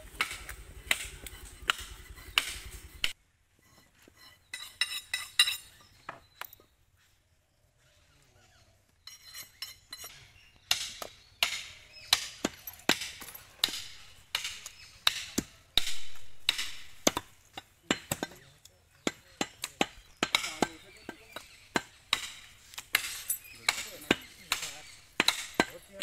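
Heavy butcher's knife chopping beef on a wooden log chopping block: a run of sharp, uneven blows about one to two a second, broken by a lull of a few seconds about a third of the way through.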